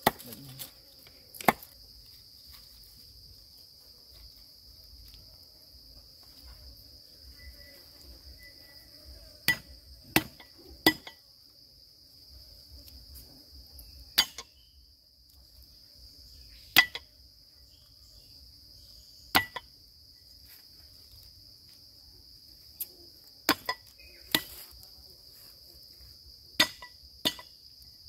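Steady high-pitched insect chorus, crickets or cicadas, broken by about a dozen sharp knocks at irregular intervals, some coming in quick runs of two or three. The knocks are the loudest sounds.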